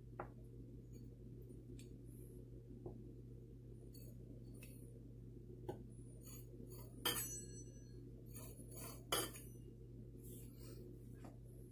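Metal pizza-cutter wheel rolling through thin dough on a countertop, with light clicks and a few sharper metallic clinks, the loudest two a couple of seconds apart in the second half, over a steady low hum.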